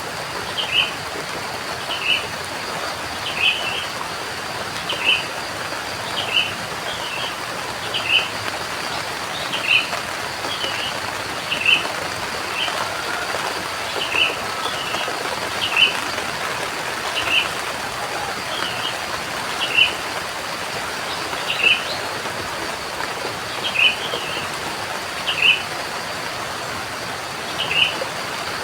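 Steady rain, with a bird giving short chirps over and over, about one every second and a half, some in quick pairs.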